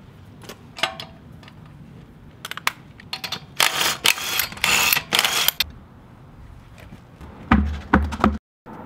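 Wheel nuts being undone on a wheel: a few metallic clicks from a wheel brace, then a cordless impact wrench run in several short bursts from about three and a half to five and a half seconds in. Near the end, two or three heavy thuds as the wheel and tyre come down onto the concrete.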